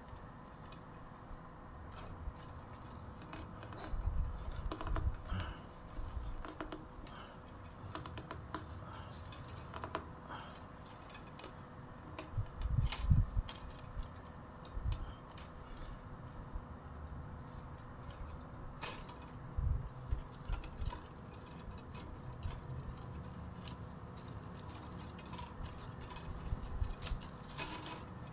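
Thin split-bamboo strips clicking and rustling as they are hand-woven over and under one another into the base of a fish creel, with irregular light ticks and a few soft low thumps.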